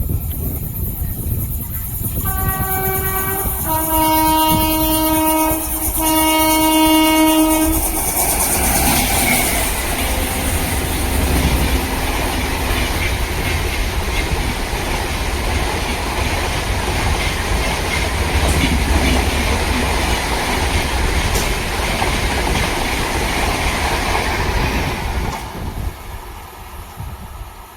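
An Indian Railways train sounds its horn three times, one short blast and then two long ones, as it approaches, then passes at speed with a steady rush of wheel and rail noise and clickety-clack that cuts off when the last coach has gone by.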